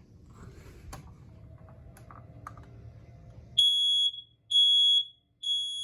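Kidde I9050 ionization smoke alarm sounding on its test button: after a few faint clicks of handling, it gives three loud, shrill beeps about a second apart.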